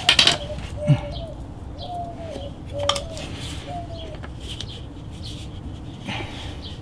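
A few light clinks and taps as an applicator is dipped in a small metal can of PVC cement and worked against the pipe, the sharpest near the start and about a second in. A bird calls in the background, short low notes about once a second.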